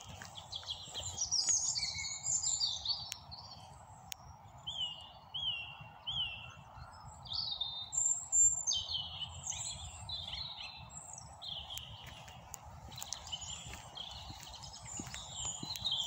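Several songbirds singing in a run of varied high chirps and warbles, with three short repeated notes about five seconds in, over a steady low background rumble.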